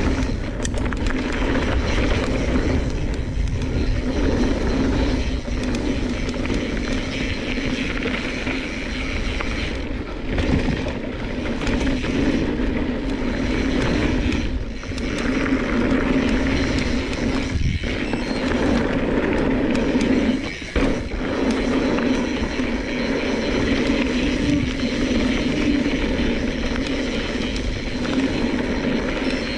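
Mountain bike riding fast down a loose-gravel trail: tyres crunching and rumbling over gravel and rock, the bike rattling, and wind buffeting the microphone, with a steady buzz underneath and a few brief lulls.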